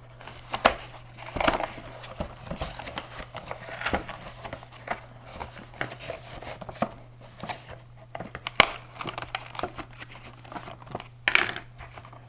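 A small cardboard-and-plastic toy box being opened by hand: irregular crinkling, scraping and sharp clicks of the packaging, with a few louder snaps. A steady low hum runs underneath.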